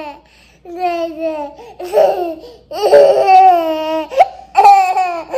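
A toddler laughing and squealing in several long, high-pitched, drawn-out cries.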